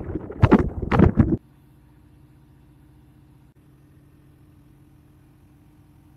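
Wind buffeting the microphone in loud gusts, cutting off about a second and a half in; then a faint steady hum of the ship's machinery with a few steady low tones.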